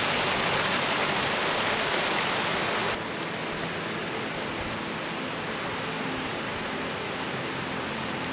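Steady rush of water pouring down a dam spillway, a man-made waterfall. The sound drops a little in level about three seconds in, then holds steady.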